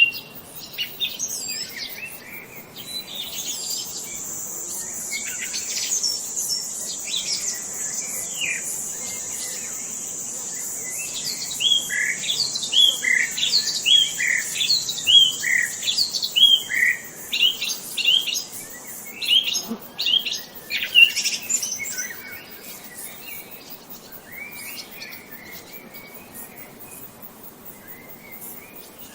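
Songbirds chirping and calling, including a run of quick repeated down-slurred notes in the middle. A steady high-pitched buzz runs under the calls for much of the time, then stops about two-thirds through.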